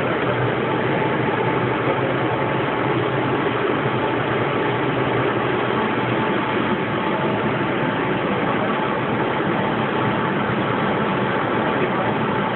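Steady rumble and hiss inside a Santiago Metro subway car, the train running, with a faint steady whine under it.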